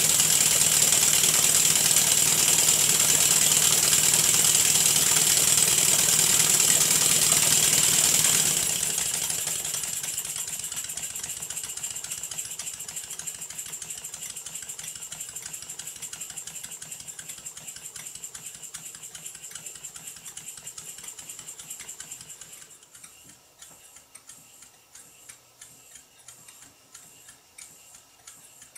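Two Stuart S50 single-cylinder model mill engines running fast on compressed air, a steady rapid mechanical beat with loud air hiss. About eight or nine seconds in the sound falls away and the engines run down, getting gradually quieter, until near the end only a faint, slow tick about twice a second is left as they turn over slowly.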